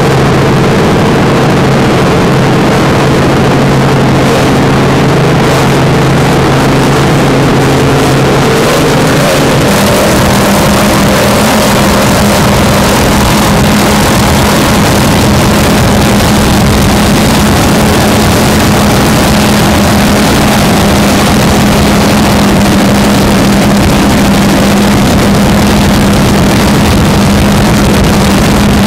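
Offshore race-boat engines running at speed in a loud, steady drone. About nine seconds in the pitch changes to a different steady note.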